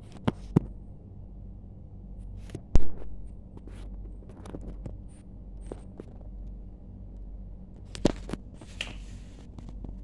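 A few sharp clicks and knocks on a wire pet cage, the loudest about three seconds in and another about eight seconds in, over a steady low hum.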